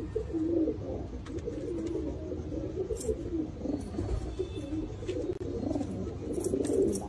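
Domestic pigeon cooing: low, warbling coos, one after another.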